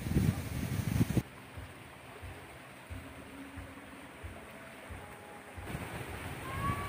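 Wind rumbling on the microphone for about the first second, cut off abruptly, then faint outdoor background. Near the end, one short animal cry that rises then falls in pitch.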